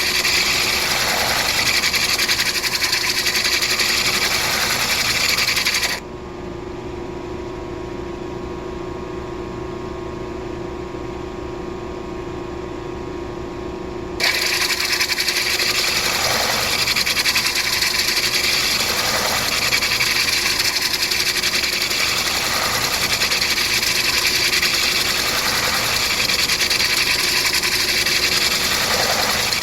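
A stone being ground on a spinning grinding wheel, a steady gritty rasp. About six seconds in the grinding stops for roughly eight seconds, leaving only the machine's steady hum. Then the stone goes back on the wheel and the rasp returns suddenly.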